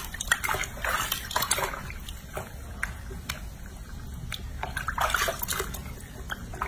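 Bathwater sloshing and splashing in a washbasin as hands wash and hold a baby monkey, coming in uneven bursts, with louder splashes about a second in and again about five seconds in.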